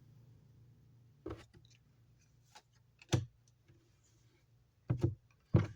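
Trading cards being handled: about five short, sharp clicks and taps scattered through, the loudest near the end, over a faint low hum.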